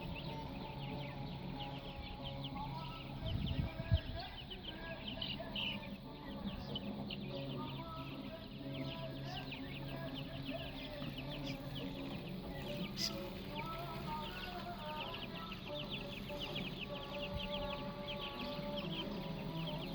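Chickens clucking over a continuous dense chatter of short high chirps, with a brief low thump about four seconds in.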